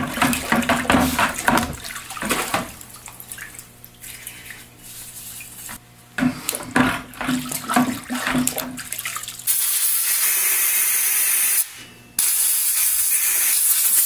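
Transmission main shaft and gear being scrubbed with a rag and sloshed in a bucket of mineral spirits, liquid splashing, then rinsed in a second bucket. About ten seconds in, a steady hiss of compressed air blowing the part dry, in two blasts with a short break between.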